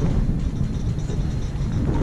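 Bombardier Variotram low-floor tram running, heard from inside the passenger cabin: a steady low rumble of the wheels on the rails, with light high-pitched rattles and squeaks over it.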